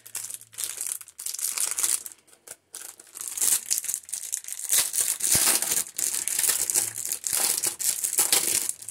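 Thin plastic packaging crinkling and rustling as small resealable bags of diamond painting drills are handled, with a short pause a little after two seconds in.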